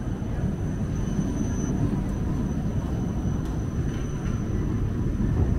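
Siemens Combino city tram passing close by on street rails: a steady low rumble of its wheels and running gear, with a thin steady high tone above it.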